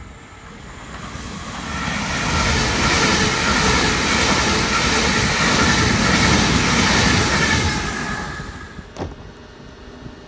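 Electric passenger train running into the platform: rumbling wheel-and-rail noise with a whine builds over the first two seconds and stays loud, then dies away after about eight seconds as the train slows to a stop. A single sharp click comes near the end.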